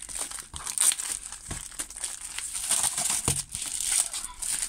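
Crinkling and rustling of a rolled diamond painting canvas and its plastic film as it is handled, with a few soft knocks.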